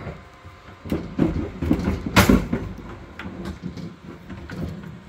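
Stern James Bond 007 pinball machine's wooden playfield being slid forward and lifted up, scraping in its cabinet with several clunks, the loudest a little over two seconds in.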